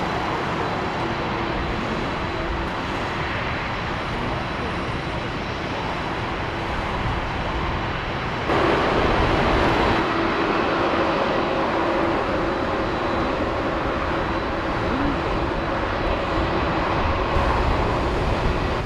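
Rolls-Royce Trent 970 turbofan engines of an Airbus A380-841 taxiing at low thrust: a steady jet rumble with a faint whine. It gets abruptly louder about eight and a half seconds in.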